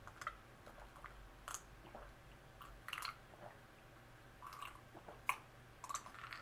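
Drinking from a glass, with several faint, short sips and swallows spread out, the clearest about five seconds in.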